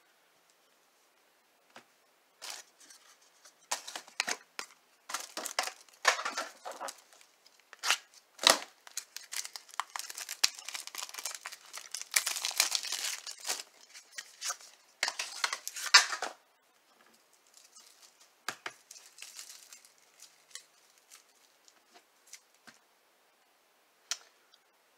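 A trading card pack's wrapper being torn open and crinkled: a run of rustling tears and crackles from a couple of seconds in until about two-thirds through, loudest in the middle, then only faint scattered rustles.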